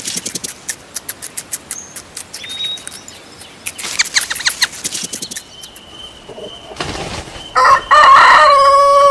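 Chickens with runs of short rapid sounds, then a rooster crowing near the end: one long, loud pitched call.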